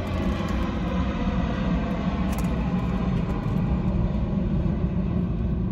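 Steady low rumble of a vehicle, even throughout with no sudden sounds.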